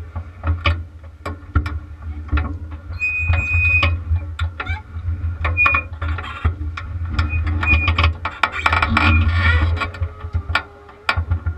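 A kart cross buggy being hand-towed on a tow bar: irregular knocks and rattles from the chassis and bar, with a few short squeaks, over a low rumble.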